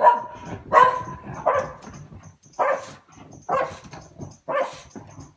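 Shetland Sheepdog barking, about five sharp barks spaced roughly a second apart.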